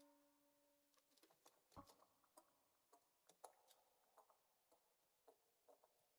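Near silence: the tail of a held musical note fades out within the first second, followed by faint, irregular soft clicks, two or three a second.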